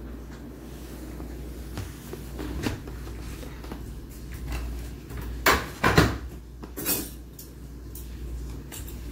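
Indoor handling noises: scattered knocks and clatters over a steady low hum, with a cluster of louder clatters about halfway through.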